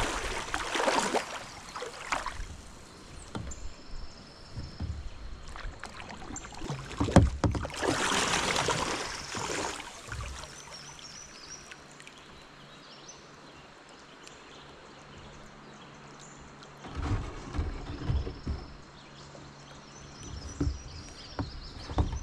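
Kayak paddle blades dipping and pulling through calm river water, with splashing and water rushing along the hull. It comes in a few spells of strokes, and the kayak glides more quietly between them.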